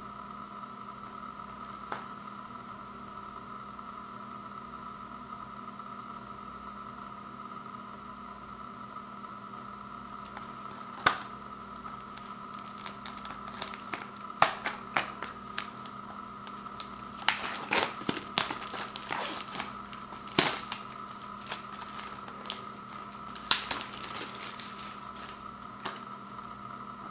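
Clear plastic shrink-wrap being torn open and peeled off a Blu-ray case. It crinkles and crackles irregularly from about eleven seconds in, most densely in the middle stretch, over a steady faint background hum.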